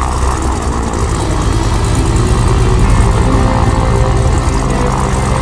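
Piston engine of a single-seat aerobatic monoplane running at low power as it taxis, propeller turning, with a steady low drone.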